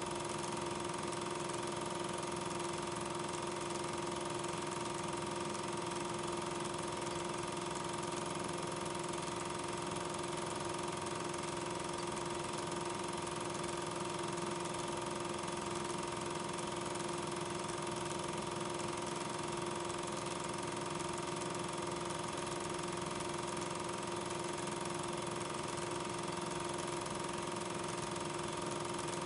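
Steady, unchanging machine hum with a constant hiss, the running noise of a film projector during the transfer of silent regular 8 mm film.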